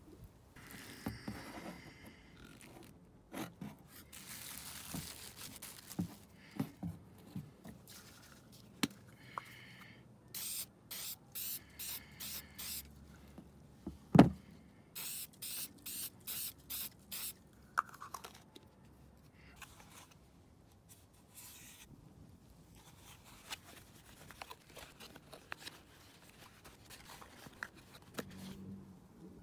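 Aerosol can of air filter oil sprayed onto a K&N air filter in two runs of about five short hissing bursts, with a sharp knock between the runs. Scrapes and clicks of plastic parts being handled come first, and a rag rubbing on the plastic air filter box cover comes near the end.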